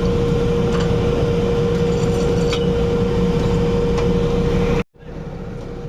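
Drilling rig machinery running steadily: a constant hum with a steady tone, broken by a few faint metallic clinks. It cuts off abruptly about five seconds in, leaving a much quieter background.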